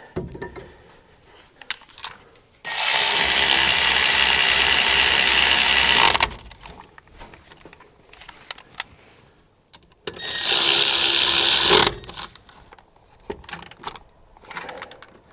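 Handheld power tool running in two steady bursts, one of about three and a half seconds and a shorter one near two seconds, while the rear brake caliper is bolted back on. Light clicks and handling noise come between them.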